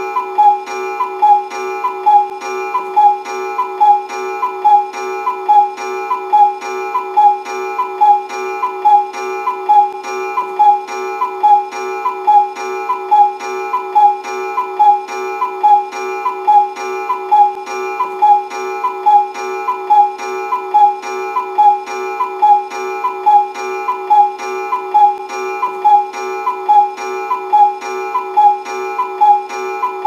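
Cuckoo clock call repeating over and over at an even rhythm, a little more than once a second, over a steady held tone.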